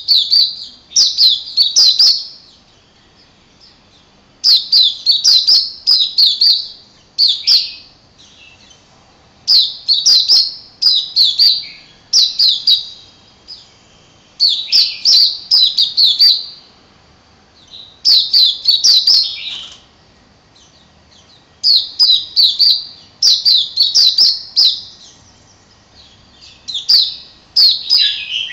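Caged white-eye singing: repeated phrases of rapid, high chirping notes, each one to two seconds long, coming about every three seconds with short pauses between.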